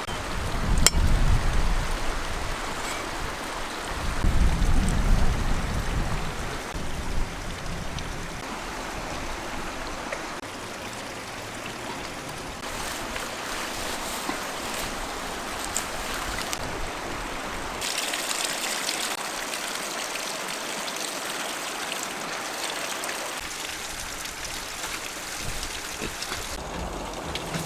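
Water running steadily, like a small stream or water splashing down a bamboo channel. Two low rumbles come near the start and again about four seconds in.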